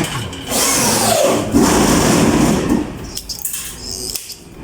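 A small motor whirs for about two seconds, starting about half a second in, its pitch falling near the start.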